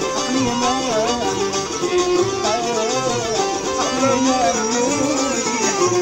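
A man singing a wavering, heavily ornamented melody in a Middle Eastern folk style, accompanying himself on a plucked mandole.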